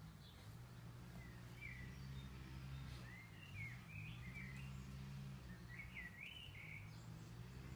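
Faint bird chirps and short warbling calls in two clusters, first about two seconds in and again about six seconds in, over a low steady hum.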